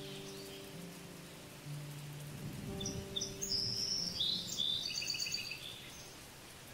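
A small bird sings a short run of high chirps and trills starting about three seconds in, over an outdoor hiss and soft background music of held low notes.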